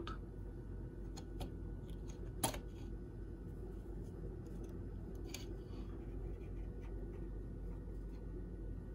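Plastic power-switch and inlet housing of a 3D printer being pulled out of its frame cutout: one sharp click about two and a half seconds in as it comes free, with a few fainter clicks of handling. A low steady hum runs underneath.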